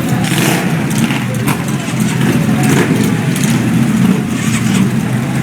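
Big motorcycle engines running, idling with occasional revs.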